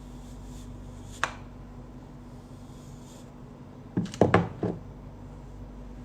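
A single sharp tap about a second in, then a quick cluster of knocks a little after four seconds in, like objects being handled and set down, over a steady low hum.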